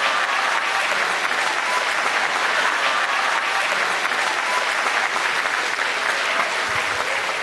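Stand-up comedy audience applauding, a steady, dense clapping.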